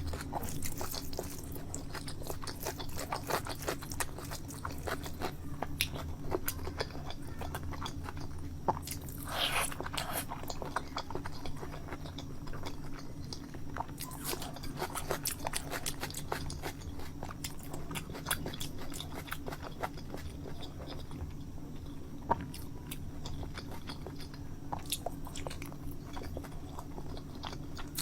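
A person chewing and biting food close to the microphone, with many short clicks and crunches, over a steady low hum.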